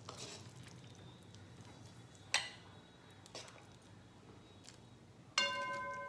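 A spoon stirring thick curry in a metal pan: faint wet stirring with a couple of light clicks. Then, about five seconds in, a sharp clink of the spoon against the pan that rings on with several clear tones.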